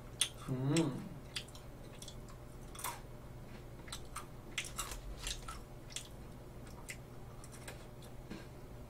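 Close-miked crunching and chewing of Lotte White Cookie Pepero biscuit sticks: a scatter of small, sharp crunches.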